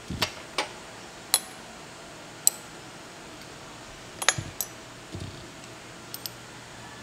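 Glass test tubes and a glass dropper clinking and tapping against a wire test-tube rack as they are handled: a handful of sharp, irregular clinks, a few of them ringing briefly.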